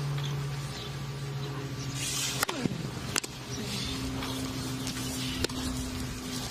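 Tennis rally: a handful of sharp racket-on-ball hits, the first about two and a half seconds in and the rest spaced about one to two seconds apart, over a steady low hum.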